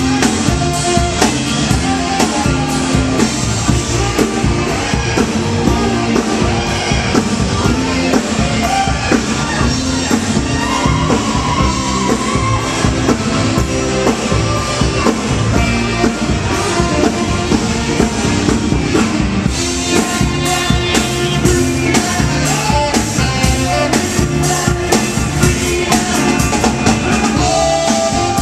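Rock music: a band with a singer, drum kit and electric guitar playing at a steady beat.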